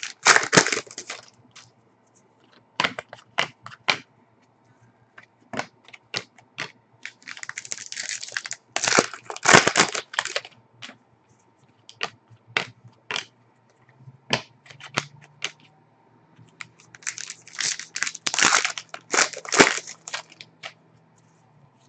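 Foil trading-card pack wrappers crinkled and torn open in three bursts, at the start, midway and near the end, with short sharp clicks and snaps of the cards being handled in between.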